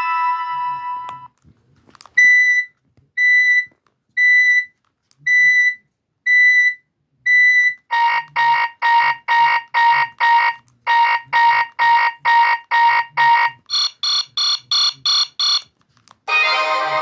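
A run of BlackBerry Curve 8520 ringtones and alert tones. A chime dies away, then six evenly spaced electronic beeps come about a second apart. A faster pulsing beep follows, then a still quicker, higher beep, and a melodic ringtone starts near the end.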